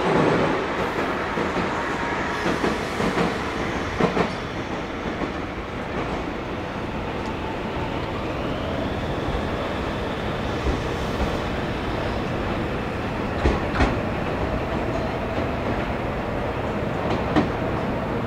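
Meitetsu electric train running along the track: a steady running noise with occasional sharp clacks of wheels over rail joints, a little louder at the very start.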